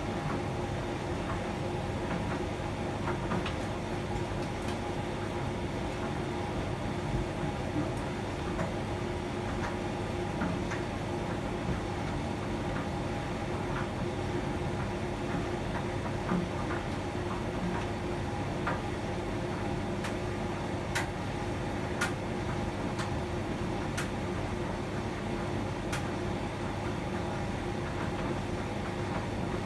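Hotpoint tumble dryer running a drying cycle: a steady motor and drum hum, with irregular light clicks as the mixed load tumbles in the drum.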